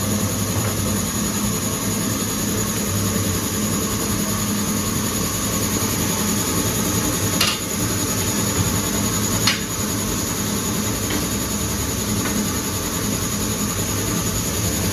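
Steady machine hum with a continuous hiss, typical of tyre-shop equipment at work while a motorcycle tyre is being fitted. Two sharp clicks or knocks come about halfway through, two seconds apart.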